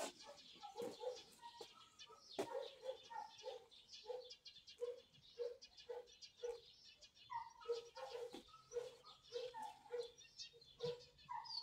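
Faint, short animal calls repeated about two a second, with fainter high chirps over them.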